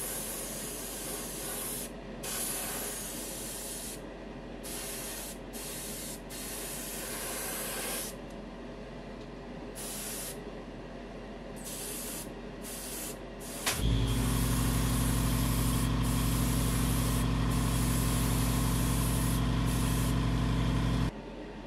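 Airbrush spraying yellow enamel, its hiss coming in short bursts as the trigger is pressed and released. About two-thirds of the way through, an electric motor starts with a click, hums loudly and steadily for about seven seconds, then cuts off suddenly.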